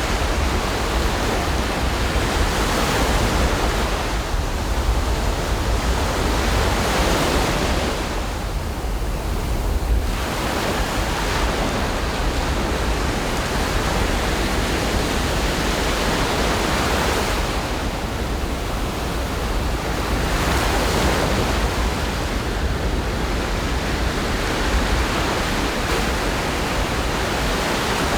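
Ocean surf: waves breaking and washing up the shore in swells every few seconds, over a steady low rumble.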